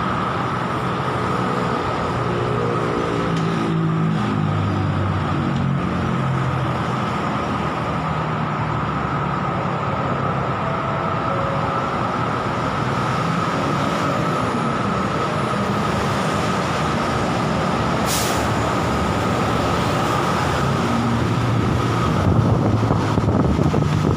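Steady traffic noise, with a heavy vehicle slowing in the first several seconds, its pitch falling in steps. A steady high whine runs under it throughout, and there is one short sharp sound about three-quarters of the way through.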